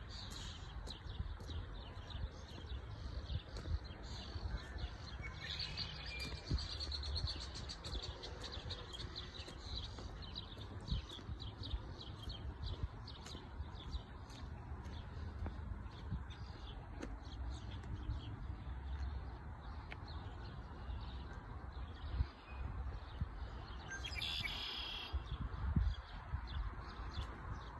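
Small birds chirping repeatedly over a steady low rumble, with a brighter call near the end.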